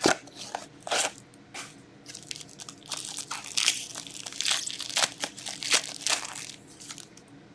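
A cardboard hockey card box being torn open, then the foil card pack inside crinkling and tearing as it is pulled open by hand: irregular sharp crackles, busiest in the middle.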